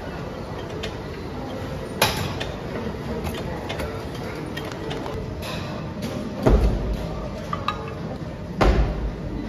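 Busy gym background noise with metal weight equipment clanking: a sharp clank about two seconds in, and two heavier thuds, one past the middle and one near the end.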